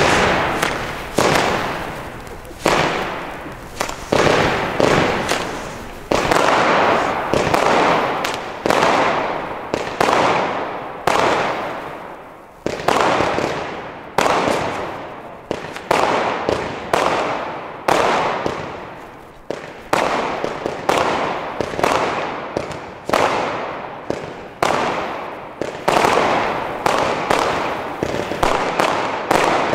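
Consumer fireworks going off in a steady run of shots bursting overhead, about one every second or so. Each is a sudden bang followed by a fading crackle.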